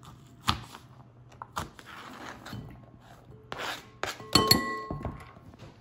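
A chef's knife knocking and scraping on a plastic cutting board as diced bell pepper is pushed off into a mixing bowl. About four seconds in, the knife and board strike the bowl with ringing clinks, the loudest sound here.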